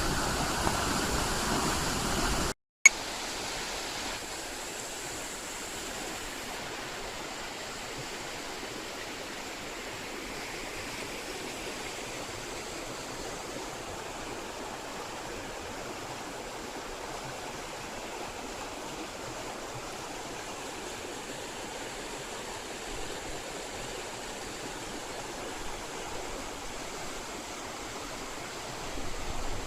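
Rushing water of river rapids, a steady hiss. About three seconds in it cuts out for a moment, then carries on quieter and steady.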